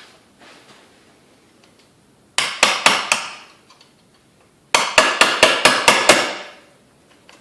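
Hammer strikes on metal, driving a stuck part out of an ATV engine's top end: about four sharp blows, a pause, then a quicker run of about seven, each with a brief metallic ring.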